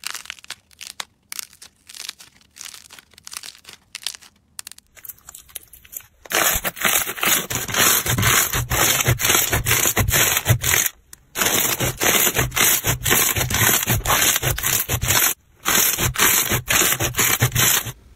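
Slime being squeezed and pressed by hand, crackling and crunching. For about the first six seconds the crackles are sparse and quieter; after that they turn dense and loud, with two brief breaks.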